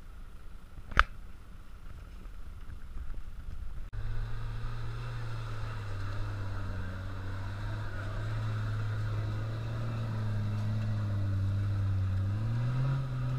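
A 4x4 SUV's engine pulling steadily at low revs as the vehicle crawls over a sandy off-road slope, then revving up a little near the end. A single sharp click comes about a second in, before the engine is heard.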